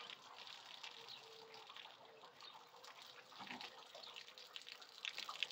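Very faint handling noise: a cutoff wheel and a cardboard template being shifted on a table, with a few light clicks and rustles over a quiet background hiss.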